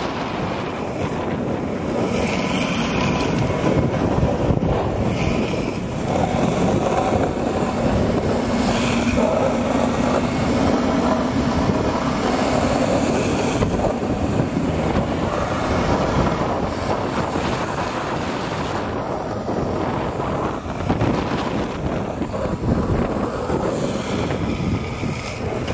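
Wind rushing over the microphone at speed, over a steady road rumble from rolling fast down rough asphalt during a downhill longboard run, with a few brief louder gusts.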